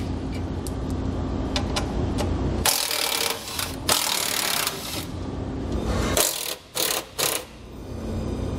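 Cordless impact driver with a half-inch socket running in bursts, its hammer rattling as it loosens and backs out the bumper mounting bolts.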